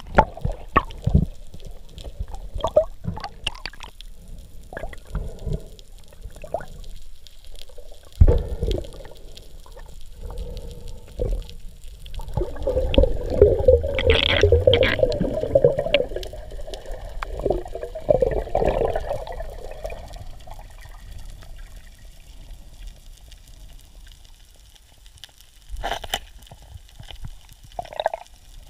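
Muffled underwater sound of sloshing and bubbling water, with scattered short knocks and clicks. About twelve seconds in there is a louder rush of water lasting several seconds.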